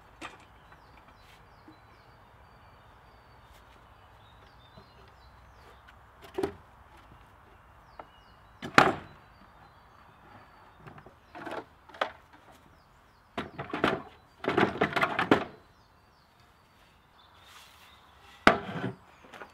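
A series of irregular knocks and thuds, loudest about halfway through and clustered together a few seconds later, over a faint steady background with short high chirps.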